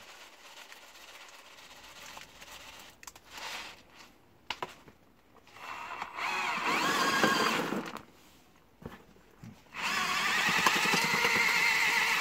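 Electric drill with a paddle mixer attachment churning potting soil and fertilizer granules in a pot. The motor whines up for a short run of about two seconds around the middle, stops, then runs steadily again from about ten seconds in. Before that come faint light rattles of granules being shaken from a plastic bottle.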